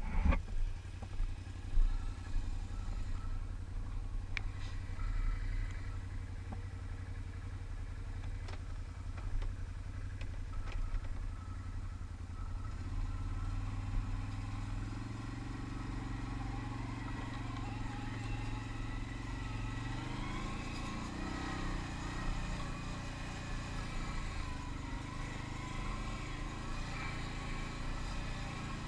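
Can-Am ATV engine idling steadily with a few light clicks, then from about halfway pulling away along a rough trail, its pitch rising and falling with the throttle.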